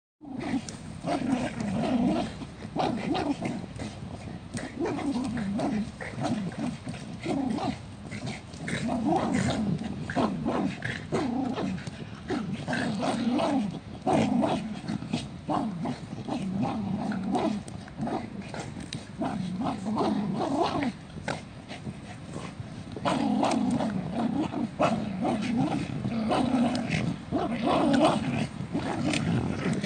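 Three Jack Russell terriers growling almost without pause while they pull at the same object in a tug-of-war, the growls rising and falling in irregular bursts.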